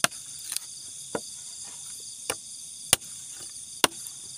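A machete chopping firewood by hand: six sharp, unevenly spaced chops into wood. A steady chorus of crickets and other night insects runs underneath.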